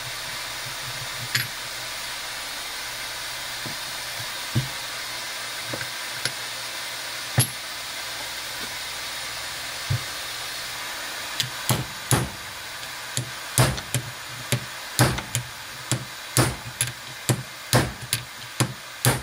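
Hand impact driver struck with a hammer to drive out a field-coil screw on a 12-volt Ford tractor starter. A few scattered knocks come first, then from about halfway a quick run of sharp hammer blows, about two a second, over a steady hiss.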